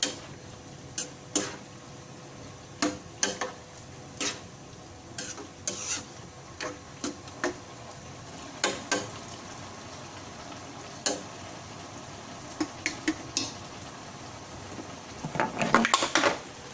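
Spatula stirring chayote vegetables in a wok, scraping and clinking against the pan at irregular intervals over a steady sizzle. A quick flurry of louder clatters comes near the end.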